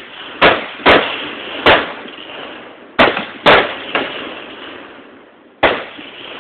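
Rifle shots fired one at a time: six sharp reports at uneven intervals, two of them pairs about half a second apart, each with a brief echo.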